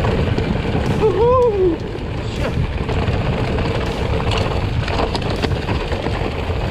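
Wind rushing over the camera microphone and the rumble of a mountain bike's tyres on a dirt trail. About a second in there is a short pitched sound that rises and falls.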